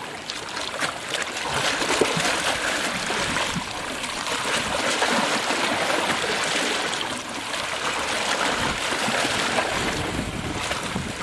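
Seawater washing over shoreline rocks and streaming off them, swelling and easing every few seconds.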